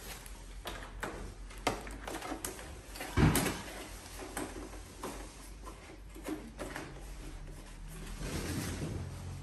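Handling noises as a paper envelope and small plastic parts are put into a motorcycle's open under-seat compartment: scattered clicks, knocks and rustling, with one louder thump about three seconds in.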